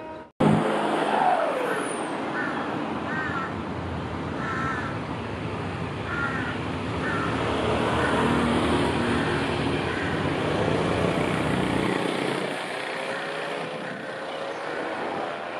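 Diesel locomotive engines running with a deep rumble as a freight locomotive creeps forward, while crows caw repeatedly in the first half. The rumble drops away about twelve seconds in, and a rising engine tone follows.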